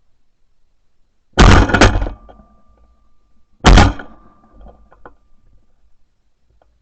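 Two shots from a Franchi Affinity Elite 3.5 12-gauge semi-automatic shotgun, a bit over two seconds apart. Each is very loud and ends in a short echo, typical of a pair of clays shot in quick succession.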